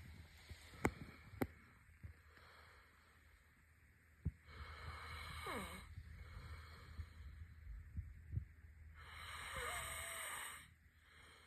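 A sleeping person snoring: two long, noisy breaths about five seconds apart, each with a thin wheezy whistle through it, the first whistle falling in pitch. A couple of sharp clicks near the start.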